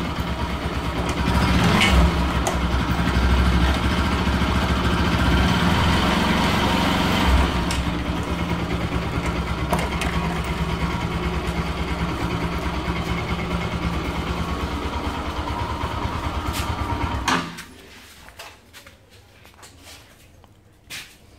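Bajaj Pulsar NS200 motorcycle's single-cylinder engine running steadily, a little louder for a few seconds near the start, then stopping suddenly about 17 seconds in. A few faint clicks follow.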